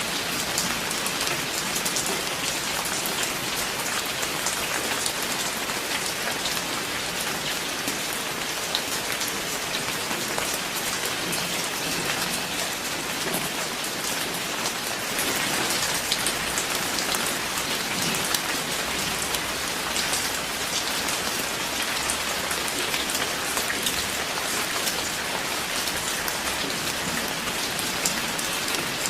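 Steady rain falling: an even hiss with many separate drops ticking through it.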